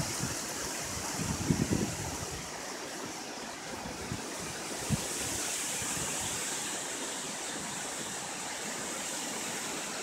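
High wind rushing steadily ahead of a cold front, with gusts buffeting the microphone in a low rumble during the first two seconds and a single short knock about five seconds in.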